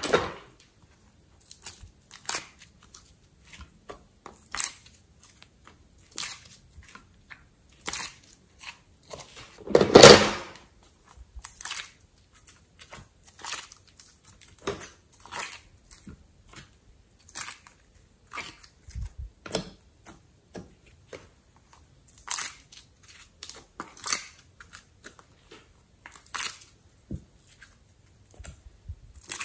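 Hands handling soft modelling clay and a clear plastic mould: irregular short clicks, crackles and squishes as clay shapes are popped out and pressed onto slime. There is one longer, louder crackle about ten seconds in.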